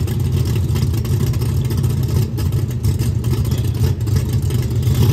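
Mud truck's new 632-cubic-inch big-block V8 with Big Chief heads running steadily: a loud, deep rumble with no revving.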